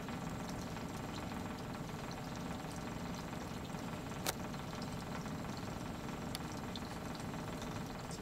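Boat engine idling steadily with a low rumble, and a single sharp click about four seconds in.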